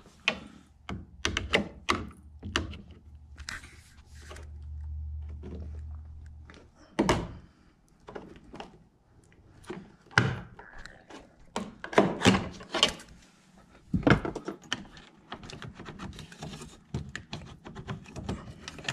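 Irregular knocks, clicks and thunks of a Honda Civic hatchback's door trim panel and its plastic clips being pried and worked loose by hand, with a low rumble lasting a few seconds near the start.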